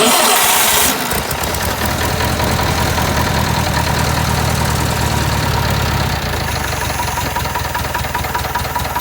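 Engine primed with a dribble of gasoline in its intake, cranked and firing: a loud burst of noise as it catches, then a steady fast rough chugging that begins to die away near the end. It sounds bad enough that it will need more priming to keep running.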